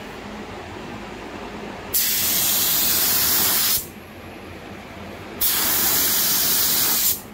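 HTE-compliant gravity-feed air spray gun spraying clear coat. Two trigger pulls of about two seconds each, about 2 and 5.5 seconds in, give a loud, even hiss of atomising air that starts and stops sharply. A quieter steady rush of air runs underneath.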